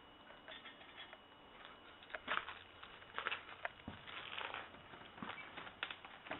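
Footsteps crunching on grit and broken debris, irregular steps starting about two seconds in.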